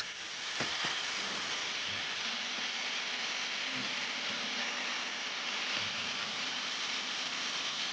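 Angle grinder with an abrasive carving disc grinding into wood, giving a steady, even grinding noise.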